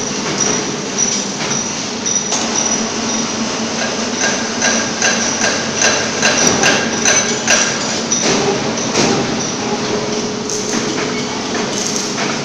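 Factory workshop din: a steady machine whine and hum with frequent sharp metallic knocks and clanks, thickest in the middle stretch.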